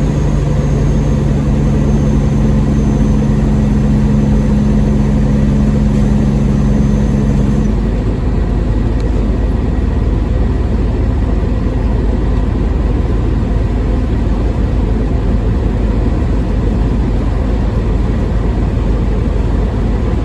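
Diesel semi-truck engine running steadily, heard from the cab. A steady hum with two low tones rides on top of it and stops abruptly about eight seconds in.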